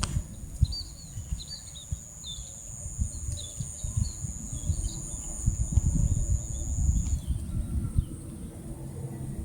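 Small birds chirping in many short, high chirps. Behind them runs a steady high insect drone that stops about seven seconds in, with low, uneven wind rumble on the microphone.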